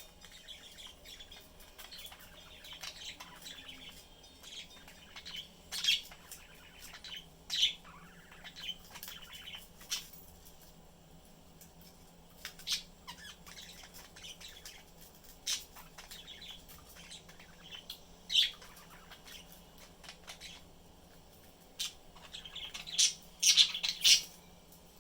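Pet budgerigars chirping and warbling, with scattered short, sharp calls and a louder burst of chirps near the end.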